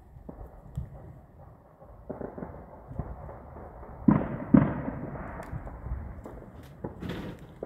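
A series of sharp bangs going off at irregular intervals, the two loudest close together about four seconds in and a smaller cluster near the end, each trailing off in a short echo.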